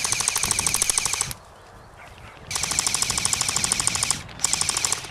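Airsoft rifle firing on full auto in three bursts of rapid, evenly spaced shots: the first stops a little over a second in, a longer burst of about a second and a half follows after a pause, and a short burst comes near the end.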